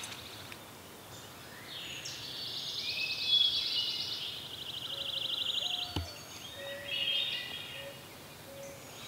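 Songbirds singing: chirps and gliding notes with a fast, even trill in the middle. A single sharp click comes about six seconds in.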